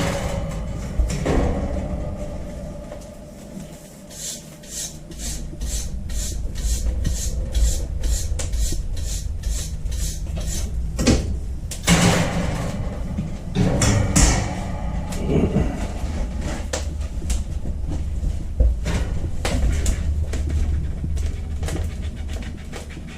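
Work clatter in a small kitchen: a quick run of light clicks and knocks, then scattered knocks and handling noises, over a steady low rumble.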